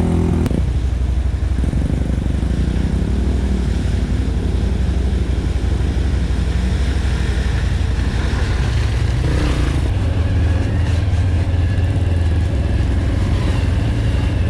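ATV engine running steadily while the quad rides along the trail: a loud, steady low drone.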